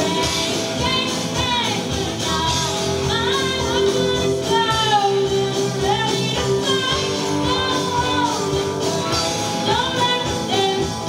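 Live rock band performing: a voice sings a gliding melody over strummed acoustic and electric guitars and drums, in a hall.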